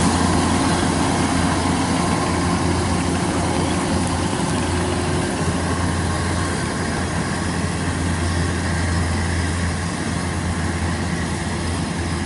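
Kubota DC-93 combine harvester's diesel engine running steadily under load with a constant deep hum.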